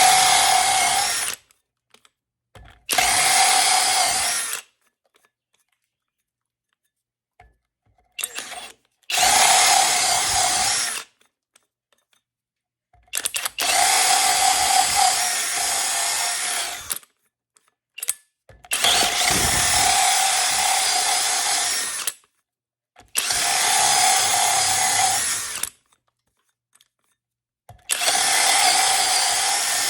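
Flex cordless drill spinning a 2 1/8-inch hole saw as it cuts into wood. It runs in about seven bursts of two to four seconds each, with a steady whine, and stops dead between them.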